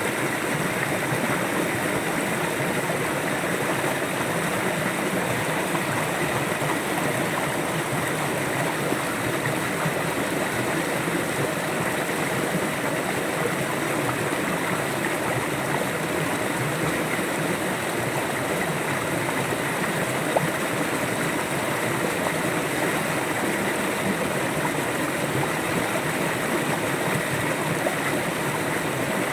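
River water flowing and gurgling in a steady, unbroken rush.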